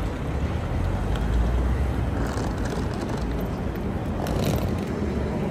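City street ambience: a steady low rumble of traffic, with faint ticks about two and four seconds in.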